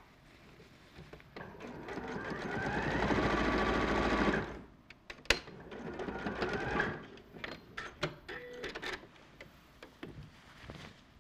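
Electric sewing machine stitching a shirt seam, speeding up and getting louder over a few seconds, then stopping abruptly. A sharp click follows, then a second, shorter run of stitching and scattered light clicks.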